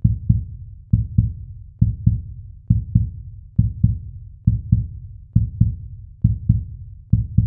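Outro music made of a low, heartbeat-like pulse: pairs of deep thumps about a third of a second apart, repeating a little under once a second.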